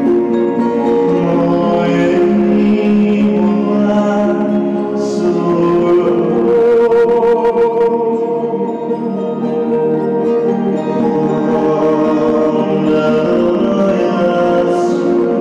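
Slow music of long held notes with layered singing voices.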